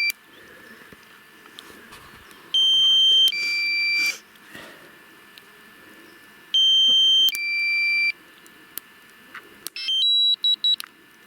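Drone remote controller's low-battery warning: a loud two-part electronic beep repeating about every four seconds, then a run of rapid short beeps near the end.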